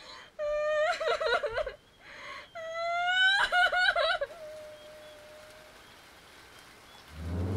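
A young child sobbing, in two wavering crying wails that break and catch. Near the end a low rumble swells in.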